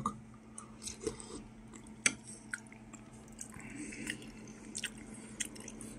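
Someone eating a spoonful of borscht: a few faint spoon clicks against the dish and quiet sipping and chewing, over a low steady hum.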